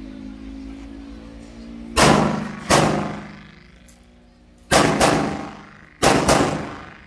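Semi-automatic pistol firing six shots in three quick pairs, each crack ringing off briefly.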